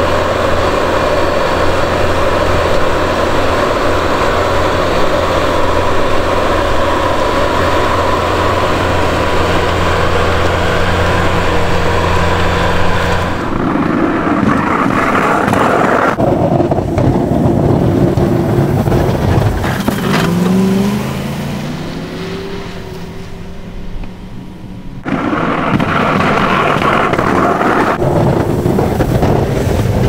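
Bobcat skid steer's diesel engine running steadily under load while pushing wet, heavy snow with a box pusher. About 13 seconds in, it gives way to a plow pickup truck driving and pushing snow, its engine pitch rising briefly around 20 seconds, quieter for a few seconds, then loud again.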